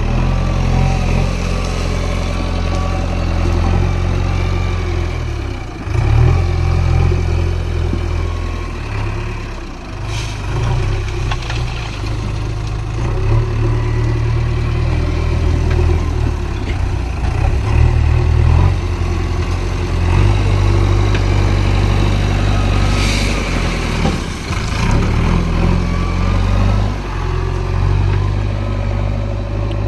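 Diesel engine of a JCB backhoe loader running under working load, its note rising and falling every few seconds as the machine works. A brief hiss comes about ten seconds in and a louder one about two-thirds through.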